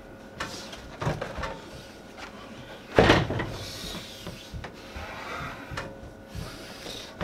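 Handling and rustling noises as a padded jacket is adjusted, with scattered light knocks and one loud thump about three seconds in.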